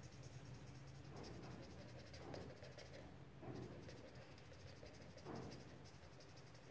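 Faint scratching of a black felt-tip marker on paper as it fills in a small area with short strokes, with four soft louder swishes spread through, over a steady low hum.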